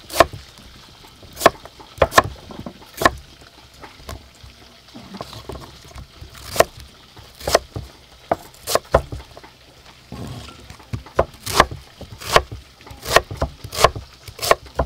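Kitchen knife slicing a banana stem on a thick wooden chopping block: irregular sharp knocks as the blade cuts through and strikes the wood. There is a pause of a few seconds near the middle.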